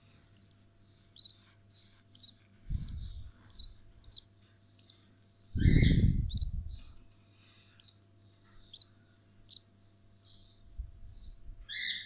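Cockatiel chick giving short, high chirping calls again and again while being handled for hand-feeding. A few low thumps from handling come in between, the loudest about six seconds in.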